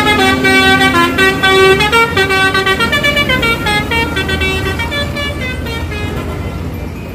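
Bus telolet horn, a multi-tone musical air horn, playing a melody of held notes that step up and down in pitch, fading through the second half.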